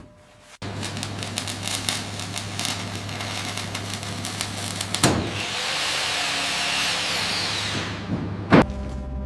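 A power tool starts suddenly and runs with a steady low hum and rapid rattling clicks. A sharp knock comes about five seconds in, then a stretch of hissing, then another sharp knock near the end.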